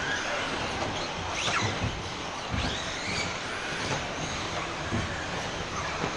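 Several 1/10 scale electric RC buggies racing, their motors whining in overlapping pitches that rise and fall as the cars accelerate and brake, over a steady hiss of tyres and hall noise, with a few soft knocks.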